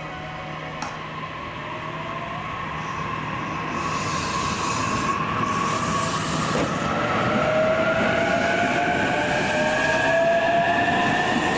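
Electric train pulling away and accelerating: the whine of its inverter-driven traction motors climbs steadily in pitch and grows louder as the cars come past. There is some hissing around the middle.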